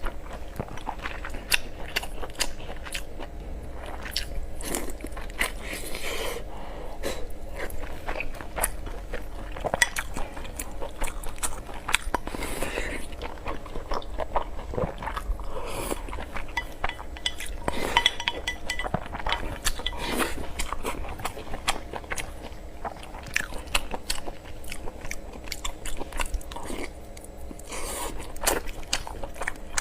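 Close-miked eating sounds: chewing and biting through pork belly and rice, a dense run of small mouth clicks and crunches that keeps going.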